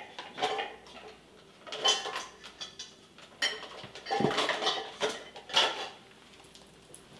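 Silicone spatula scraping and tapping against a plastic whipped-topping tub and the rim of a metal springform pan while spreading whipped cream, in about six short bursts that die away near the end.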